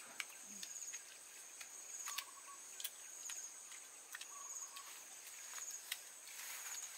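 Insects trilling in high-pitched pulsed bursts that repeat over and over, with a few light clicks scattered through.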